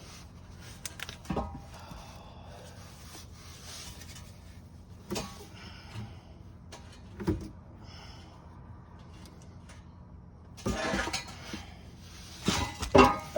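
Scattered metallic clinks and knocks from hand work on a car's parts, with a busier clatter about eleven seconds in and the loudest knocks just before the end.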